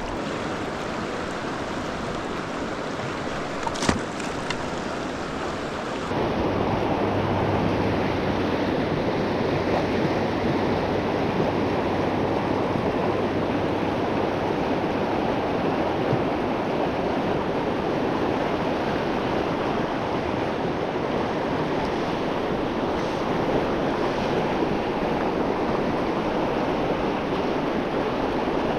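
Steady rush of flowing river water, louder from about six seconds in, with a single sharp click about four seconds in.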